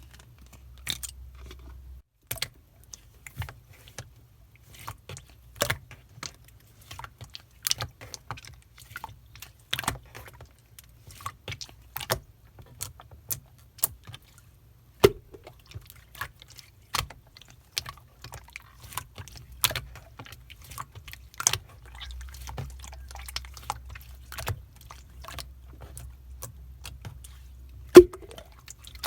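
Clear slime being squeezed and pressed by hand, giving irregular sharp clicks and pops a few times a second as trapped air bursts, with the loudest pop near the end.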